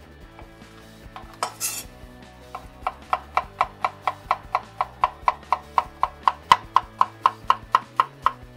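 Ceramic chef's knife chopping zucchini on a wooden cutting board: a fast, even run of knife strikes, about five a second, starting about two and a half seconds in and following a short scrape.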